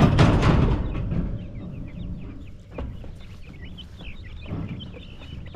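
Young chickens peeping, many short high chirps overlapping one another. A loud rustling burst comes in the first second.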